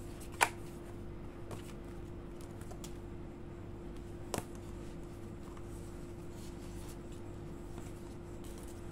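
Paper sheets and photocards being handled, with light rustling and two sharp taps, one loud near the start and a softer one about four seconds in, over a steady hum.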